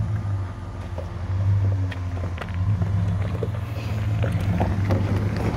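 Lifted 2016 Ram 1500 pickup crawling slowly over a rocky gravel trail: a low, steady engine hum, with stones crunching and ticking under its mud-terrain tyres. It grows a little louder as the truck nears.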